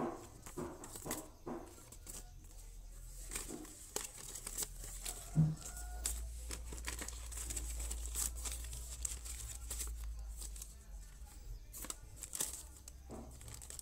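Paper and plastic packaging from a phone box rustling and crinkling as it is handled: a folded paper leaflet, then a clear plastic sleeve. A single thump about five and a half seconds in.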